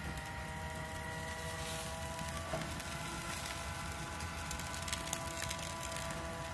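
Steady low rumble from a grill with barbecue skewers cooking on it, and a few light clicks about five seconds in as the bamboo skewers are turned on the grate. Soft held music tones sound over it.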